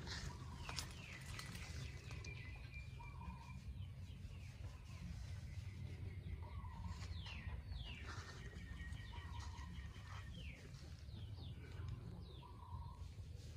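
Outdoor garden ambience with birds calling: high falling chirps and trills, and a short lower call repeated about every three seconds. A steady low rumble sits underneath.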